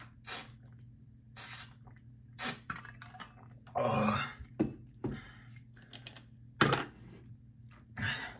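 A man's short throat and mouth noises, with a longer burp about four seconds in and a brief sharp sound, the loudest, near the end.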